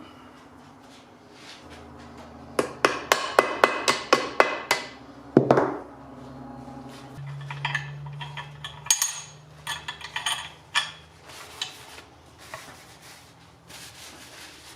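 Workshop clatter of hard objects: a quick run of about eight sharp knocks, like hammering, then a louder clang that rings and falls away, followed by scattered lighter clinks and taps, over a low steady hum.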